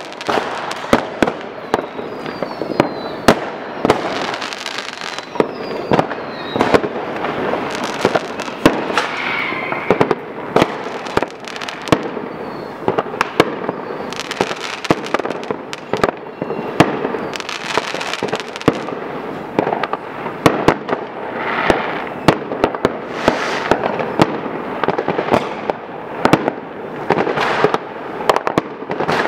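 Many fireworks going off at once: sharp bangs in quick, irregular succession over a continuous crackle and hiss of bursting rockets, with a few falling whistles.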